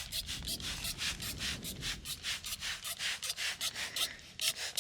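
Hand spray bottle squirting a water-mixed cleaner onto a truck's sanded body panels in quick repeated hissing spurts, about five a second, with a short pause near the end.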